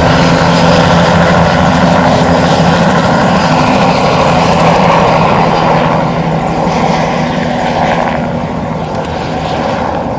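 Light helicopter flying low past, its rotor and engine running steadily, then fading over the last couple of seconds as it moves away.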